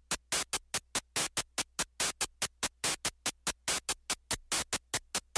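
Background music: a run of rapid, evenly spaced percussive hits, about five or six a second, over a faint low steady hum.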